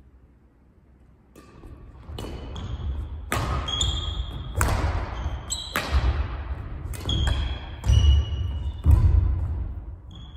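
Badminton singles rally: rackets striking the shuttlecock again and again, shoes squeaking on the wooden court floor, and heavy footfalls and lunges. It starts about a second and a half in with the serve and dies away near the end.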